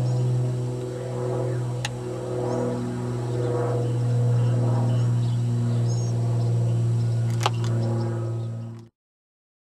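Background music: a steady low drone with slowly shifting overtones and a sharp click near the end, fading out about nine seconds in.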